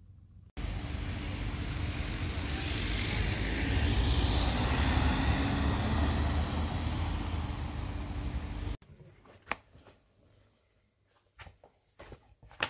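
Vehicle noise: a steady low, heavy rush with hiss that swells in the middle, starting and stopping abruptly. After it comes a quiet stretch with a few light clicks.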